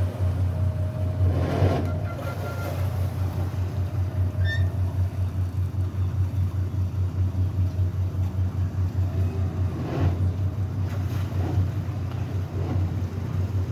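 Diesel engines of an Azimut 27 Metri motor yacht running at low speed with a deep, steady, rhythmic throb. Brief rushes of noise come about a second in and again near ten seconds.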